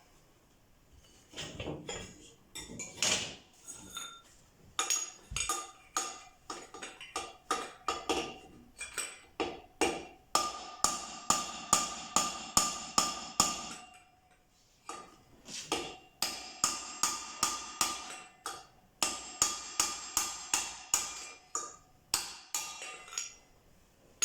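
Hammer blows on a pipe used as a drift, knocking a motocross wheel bearing out of its hub from the other side. A long series of sharp, ringing metallic strikes, about two a second at the busiest, with a short pause about two-thirds of the way through.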